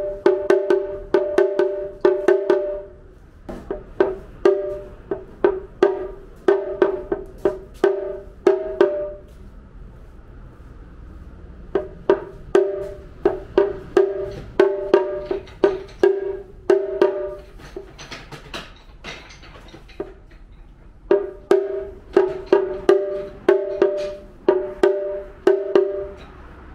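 Shime-daiko (Japanese rope-tensioned festival drum) struck with two wooden sticks in the festival-music 'tekesuku' rhythm: quick clusters of sharp, ringing strokes broken by short pauses.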